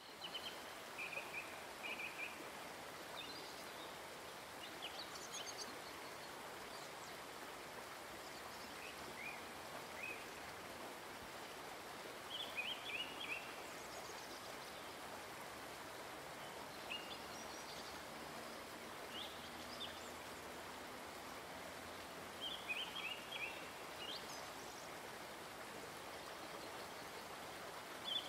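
Forest ambience: a steady rush of flowing stream water, with small birds calling in short chirping phrases every few seconds.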